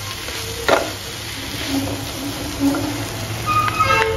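Two wooden spatulas stirring and scraping chopped spinach, sweet corn and onion in a non-stick frying pan, with a light sizzle as the vegetables sauté. A few light knocks of a spatula against the pan come through, the sharpest about a second in.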